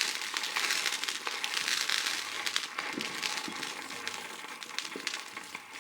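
Consumer firework crackling: a dense stream of fast small pops and sizzle that slowly dies down.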